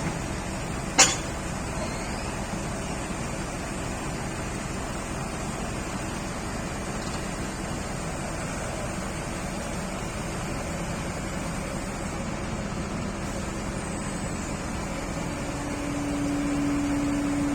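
Heavy diesel machinery running steadily under a constant hiss of rain. One sharp metallic knock about a second in, and a steady hum that swells in near the end.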